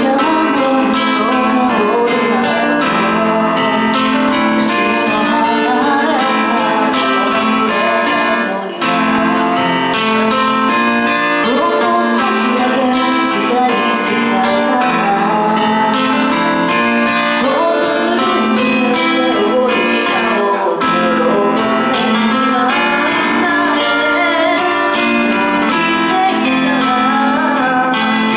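A woman singing a pop ballad live into a handheld microphone over a guitar accompaniment. The music runs on loud and even, with a brief dip near the middle.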